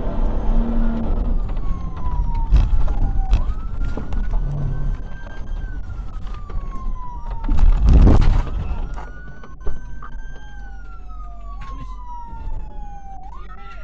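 Police car siren wailing in repeated slow sweeps, each rising quickly and falling away gradually, heard from the patrol car over the rumble of it driving across grass. A loud jolt comes about eight seconds in; after it the driving rumble drops away as the car stops.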